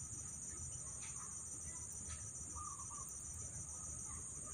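A steady high-pitched insect drone of crickets or cicadas. A bird gives a couple of short warbling calls, one about halfway through and another near the end. A low rumble of wind or handling noise runs underneath.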